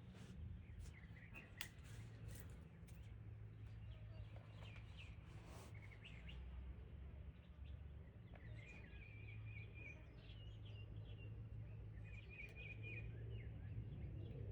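Faint outdoor ambience of small birds chirping, with a short repeated trill sounding several times in the second half, over a low steady hum. A few faint clicks come in the first couple of seconds.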